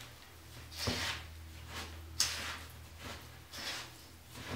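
A spoon stirring wet granulated sugar in a stainless steel mixing bowl: three gritty scraping strokes, one with a sharp click of the spoon on the bowl about two seconds in.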